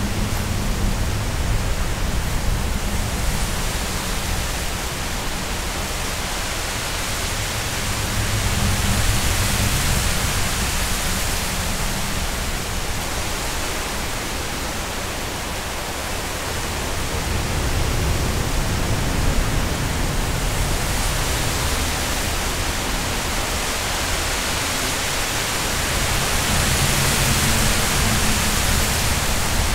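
Strong wind gusting through tall reeds and grass, a steady rushing hiss with a low rumble of wind on the microphone, swelling and easing in slow gusts every several seconds.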